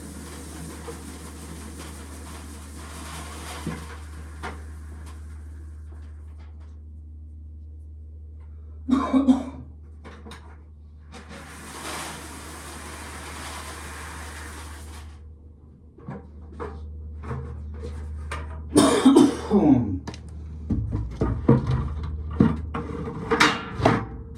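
Shelled corn kernels pouring out of a pail with a rushing hiss, twice, then a run of clattering knocks and thuds as pails are handled. Two short vocal bursts come about nine seconds in and near the end, and a steady low hum runs underneath.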